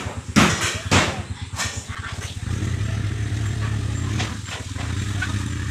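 A small engine running steadily with a low, even pulse, a little fuller from about halfway through. A few sharp knocks come in the first second or so.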